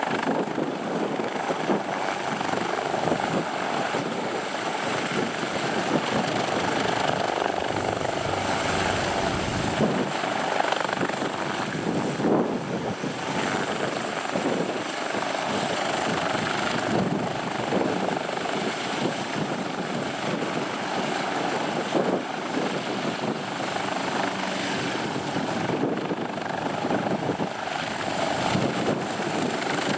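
Leonardo UH-139C helicopter's twin turbine engines and rotor running steadily, with a continuous high-pitched turbine whine over the rotor noise.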